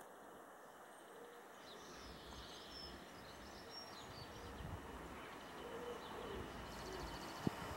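Faint low rumble of an approaching Class 66 diesel locomotive, its two-stroke V12 diesel growing steadily louder as the steel train draws near. Birds chirp over it, and there is a single sharp click near the end.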